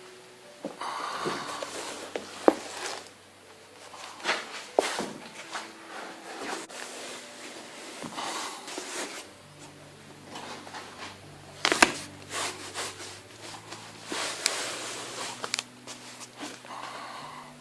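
Handling noise from a vinyl roof covering being moved about on the car roof: irregular rustling swishes with a few sharp knocks, over a faint steady hum.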